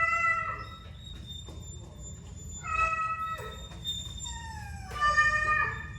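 Domestic cat meowing three times, each a drawn-out cry, the last one falling in pitch.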